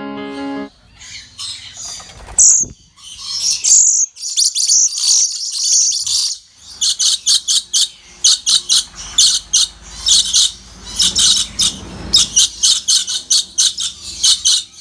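Dusky lories screeching: harsh, high calls, then from about seven seconds in a fast run of short screeches, several a second.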